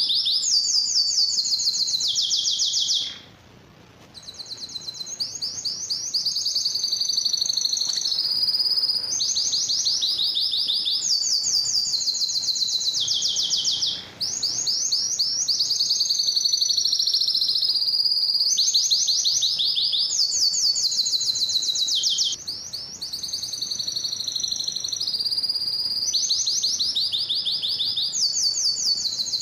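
Domestic canary singing a long song of rapid, high trills, one phrase after another, with a short pause about three seconds in.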